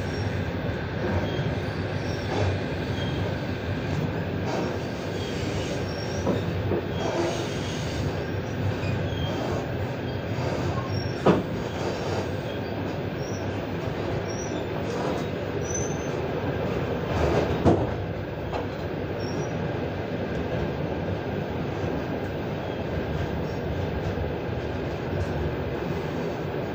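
Passenger train running, heard from inside the carriage: a steady rumble of wheels on rails, with a sharp knock about eleven seconds in and a louder short run of knocks a few seconds later.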